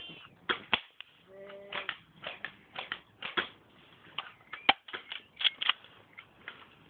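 Airsoft guns firing irregular single shots and short strings, a dozen or so sharp cracks, the loudest about three-quarters of the way through.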